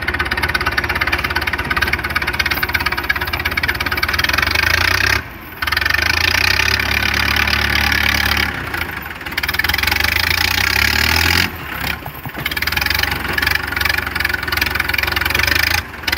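Diesel tractor engines running hard under load as two tractors pull against each other in a tug-of-war. The sound is loud and steady, with a few brief drops in level.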